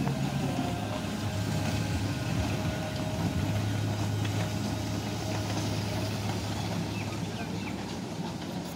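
A steady low engine-like hum with a faint haze of background noise over it.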